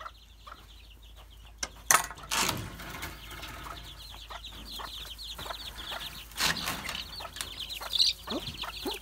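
A brood of young chicks peeping continuously, many short high falling cheeps overlapping. A sharp knock about two seconds in, and a few thuds and rustles of handling.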